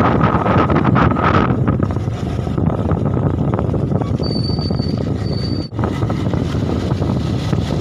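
Steady engine and road noise from a moving motorcycle, heard from the rider's seat. Two short high-pitched squeals come a little past the middle, and the sound drops out for an instant soon after.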